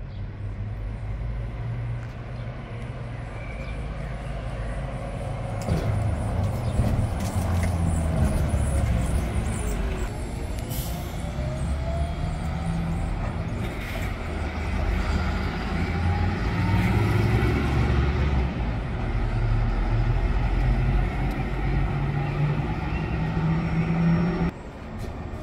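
Street traffic with a red articulated Volvo city bus driving past: a steady low engine drone and a whine that falls, then rises in pitch, with cars passing alongside.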